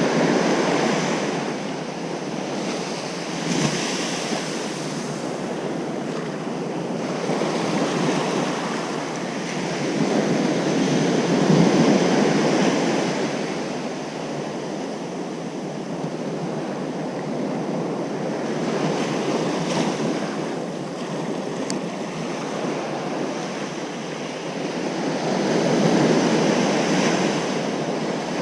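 Ocean surf breaking on a beach: a steady wash of waves that swells and ebbs, with louder breakers about a second in, around twelve seconds in and near the end. Some wind noise on the microphone.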